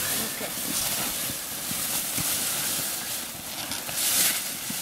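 Gold foil emergency blanket crinkling and rustling as it is unfolded and spread out, with a burst of louder crackling about four seconds in.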